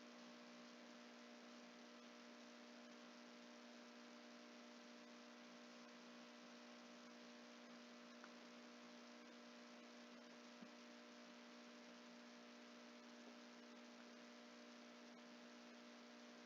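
Near silence: a faint, steady electrical hum with light hiss, broken only by two tiny clicks partway through.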